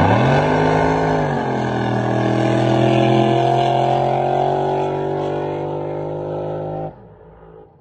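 Racing drag boat's engine at full throttle during a run down the course. Its pitch climbs, drops about one and a half seconds in, then rises steadily again before cutting off suddenly near the end.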